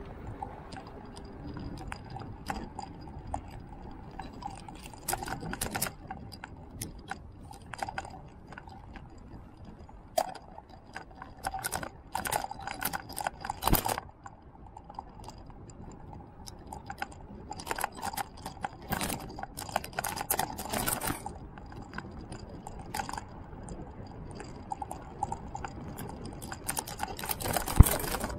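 Riding noise picked up by a camera mounted on a slowly moving vehicle on asphalt: a steady low rumble with a faint steady whine, broken by bouts of rattling clicks. There is a sharp knock about halfway through and another just before the end.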